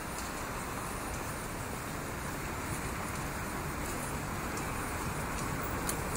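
Steady city traffic noise from nearby streets, an even wash of passing cars growing slightly louder towards the end.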